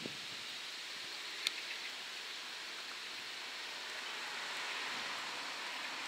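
Steady, even outdoor hiss at a railway level crossing with the barriers down, growing slightly louder a little past the middle, and a single sharp click about a second and a half in.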